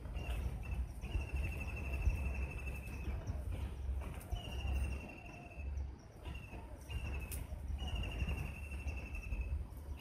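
A bird singing a high trill of rapid, evenly repeated notes that falls slightly in pitch. The runs last from a fraction of a second to about two seconds and come again every couple of seconds, over a steady low rumble.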